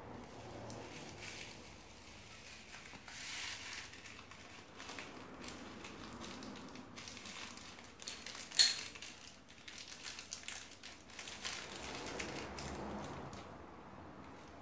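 Thin plastic bag crinkling and rustling as it is squeezed and emptied, with foam beads spilling into a glass bowl of slime. One sharp snap just past the middle stands out as the loudest sound.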